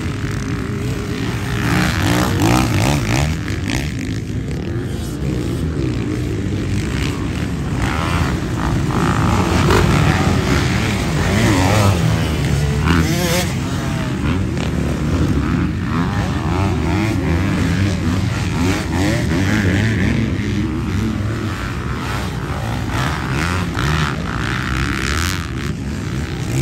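Several motocross dirt bikes running on a track, their engines revving up and easing off as the riders ride the jumps and turns, the overall loudness swelling and fading as bikes pass.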